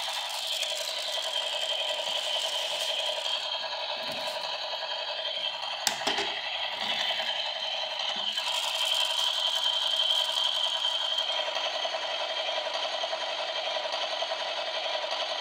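Plastic toy stunt car's wheels and gears whirring and rattling steadily as it is handled and pushed, with a sharp plastic clack about six seconds in.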